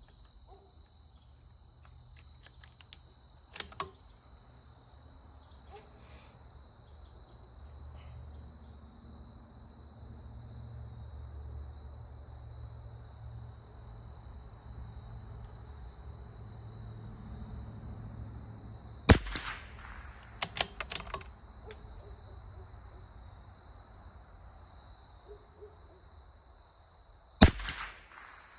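Two shots from a CZ 457 Varmint bolt-action .22 rimfire rifle, about eight seconds apart. A second or so after the first shot comes a quick run of metallic clicks as the bolt is worked. A steady high whine runs underneath throughout.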